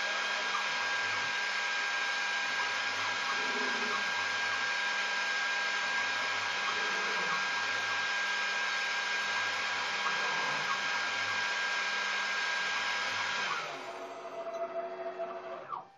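Homemade CNC vertical mill air milling, running its program without cutting: the spindle runs with a steady whine and fan-like noise while the stepper-driven table moves between hole positions. About three-quarters of the way through the loud spindle noise drops away, leaving a weaker whine with stepping tones that cuts off at the very end.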